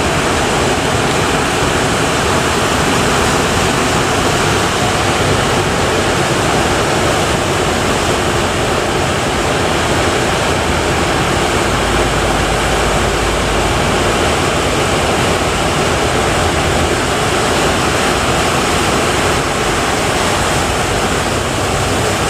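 Heavy surf: large waves breaking and rushing in a continuous loud wash.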